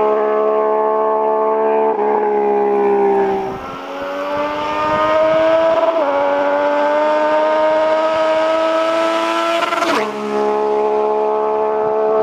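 Yamaha MT-09's inline three-cylinder engine through a Jeskap aftermarket exhaust with a titanium tip. It holds a steady note, dips about three and a half seconds in, then climbs as the bike accelerates, steps down briefly at an upshift about six seconds in, and falls back to a lower steady note near the end.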